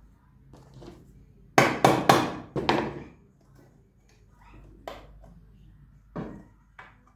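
Sharp knocks on the metal kick-starter parts of a 50 cc scooter: four quick hard taps about a second and a half in, then two lighter ones near the end, as the parts are tapped to seat them.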